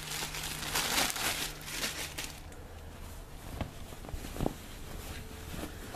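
Clear plastic bag crinkling and rustling as a folded T-shirt is pulled out of it. The rustle fades after about two seconds, leaving a quieter stretch with a couple of soft taps.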